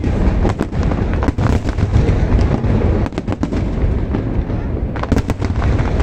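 Fireworks display: a continuous deep rumble of shell bursts with dense, rapid crackling on top, a thicker flurry of cracks about five seconds in.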